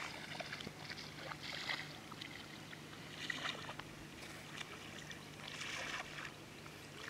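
Faint outdoor ambience: a low steady hum under soft, patchy hiss that swells and fades every second or two.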